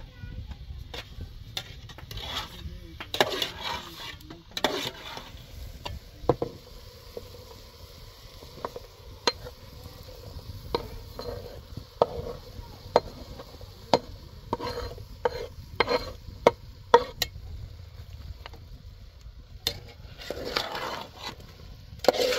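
Meat frying and sizzling in an aluminium pot over a wood fire, with a metal ladle clinking and scraping against the pot at irregular moments and a few short louder rushes. Chopped onion is tipped into the pot from a wooden board.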